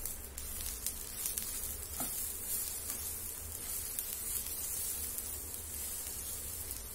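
Black plastic spatula stirring grated fresh coconut with sugar, poppy seeds and semolina in a hot nonstick frying pan: a continuous scratchy rustling hiss with faint clicks, over a low steady hum.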